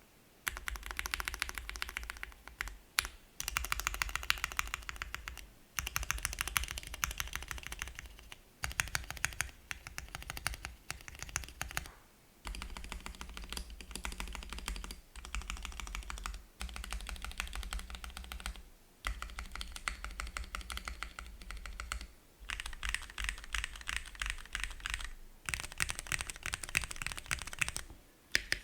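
Mechanical keyboard typed on fast: a Cannonkeys Bakeneko60 with lubed Cherry Hyperglide Black linear switches, an FR4 plate, an O-ring gummy mount and PBT keycaps. The keystrokes come in runs of two or three seconds with short pauses between them.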